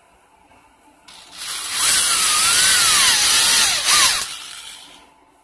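Cordless drill driving a self-tapping screw into the wall of a PVC tube: the drill starts about a second in and runs for about three seconds, with a squeal that wavers up and down in pitch as the screw cuts into the plastic, then slows and stops.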